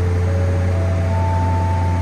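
An ascending four-note chime from the train's public-address system, the signal that an announcement is coming, over the steady low rumble of the train running.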